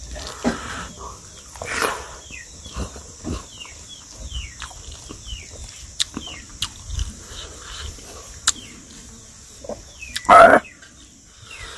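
Close-miked eating sounds: a man chewing rice and smoked pork, with wet mouth smacks and sharp clicks every second or so. One louder burst comes about ten and a half seconds in.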